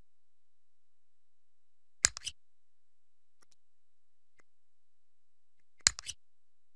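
Two short clusters of clicks about four seconds apart, each a sharp click followed quickly by two fainter ones, over a faint steady background.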